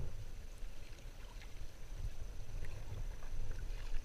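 Water lapping and splashing softly against a sea kayak's hull, with faint drips, over a steady wind rumble on the microphone.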